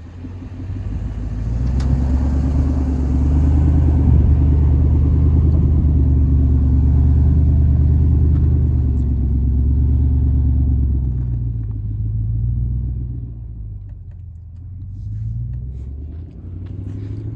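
Lexus LX470's V8 engine running as the SUV drives, a steady low drone that eases off about eleven seconds in and picks up again near the end.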